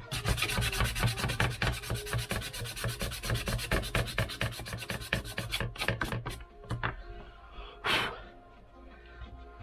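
Small pine block being hand-sanded with sandpaper: rapid back-and-forth scraping strokes, several a second, for about five seconds. The strokes then thin out to a few, with one longer scrape near the end.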